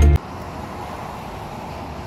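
A rock music track with guitar cuts off just after the start, leaving a steady outdoor hum of road traffic.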